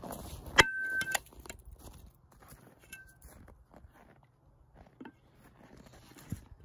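A sledgehammer strikes the head of a welded spring-steel axe that is bridged across two log rounds, about half a second in. It gives one sharp metallic clang that rings at a steady pitch for about half a second, until a second knock cuts it off. Quieter knocks follow as the axe is handled and set back down across the logs.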